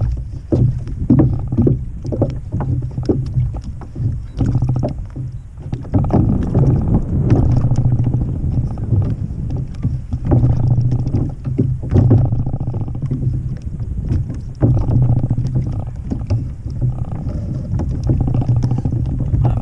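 Wind rumbling on the microphone and water lapping and slapping against a kayak's hull, with scattered knocks.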